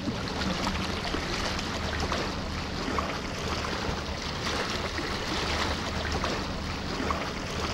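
A boat's motor running with a steady low drone, with water rushing and splashing along the hull as the boat moves through choppy water.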